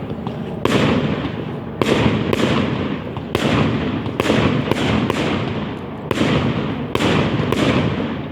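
Aerial fireworks going off in quick succession, about a dozen sharp bangs each trailing off in a long echoing tail that overlaps the next.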